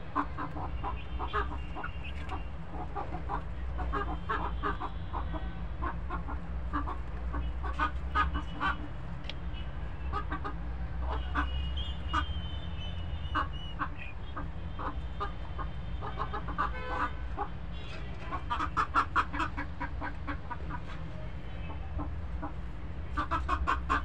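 Flock of young chickens clucking and calling in short, irregular notes, with a fast run of clucks about three-quarters of the way in and another near the end, over a steady low rumble.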